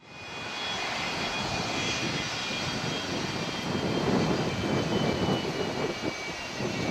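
Jet engines of a Boeing 757-200 airliner running: a steady rushing noise with two thin high whines over it, fading up quickly at the start.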